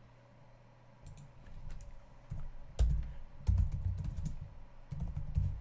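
Typing on a computer keyboard: an irregular run of key clicks with dull thuds, starting about a second in.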